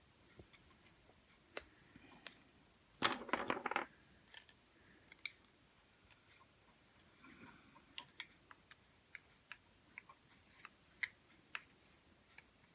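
Scattered small clicks and taps of plastic Play-Doh toys and tools being handled, with a brief louder rattle of several clicks about three seconds in.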